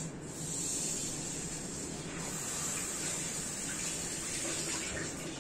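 Steady rain falling on wet paving: an even, unbroken hiss.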